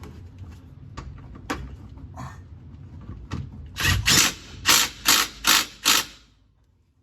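A power tool run in six quick short bursts, after a few light clicks and knocks of hand work on the car's rear suspension.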